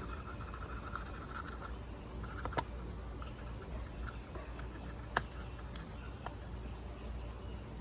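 Dry Satanite refractory mortar powder being scooped out with a small cup: faint scraping and rustling, with two sharp clicks about two and a half and five seconds in.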